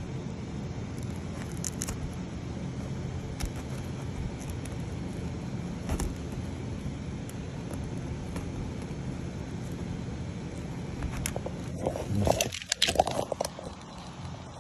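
Printed plastic support material being pried and snapped off a 3D-printed slide, with scattered clicks and then a cluster of loud crackling snaps near the end, over a steady low hum.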